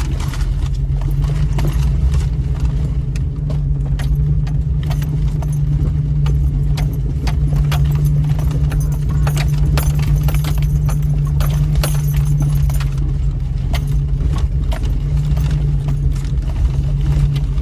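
Inside a 2000 Jeep Cherokee crawling slowly over rocks: a steady low engine drone with frequent irregular clacks and jangling rattles as the body and suspension jolt over the rough trail.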